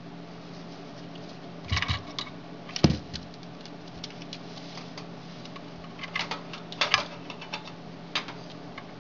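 Light clicks and taps of small objects being handled, in clusters about two seconds in and again around six to seven seconds, with one sharper knock about three seconds in. A steady low hum sits underneath.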